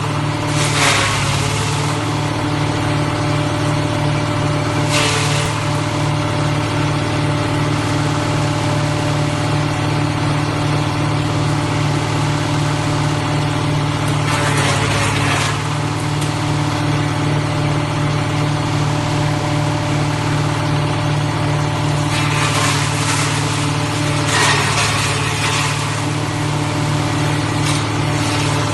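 Diesel engine of a ROTEX MASTER mobile wood chipper running steadily with a pulsing hum. A few brief, louder rushes of noise cut in over it, about a second each, five times.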